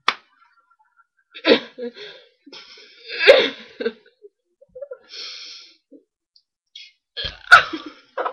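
Several short, sharp bursts of breathy vocal noise from a person, with a hissy stretch in the middle and the loudest burst near the end.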